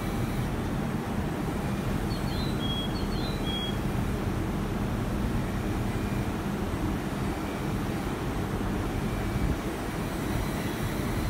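JR East 701 series electric train rolling slowly in alongside the platform, a continuous low rumble with a steady low hum that stops about nine and a half seconds in as the train comes to rest. A few brief high chirps sound two to three seconds in.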